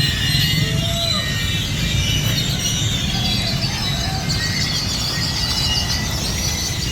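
A roost of many birds calling at once, a dense chorus of high chirps and whistles, over the steady low rumble of road traffic.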